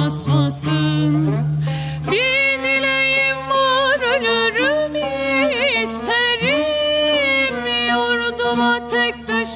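Turkish classical art music: a woman singing a slow, heavily ornamented melody, accompanied by a bowed cello and a plucked tambur, with a short break in the voice about two seconds in.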